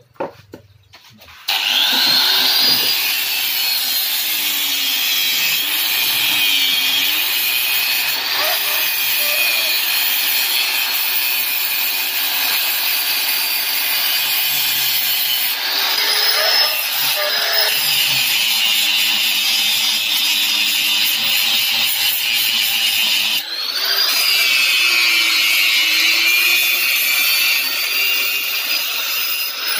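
Electric angle grinder starting up about a second and a half in, then grinding a steel rubber-tapping knife blank to shape. Its whine sags and recovers as the disc is pressed into and eased off the steel.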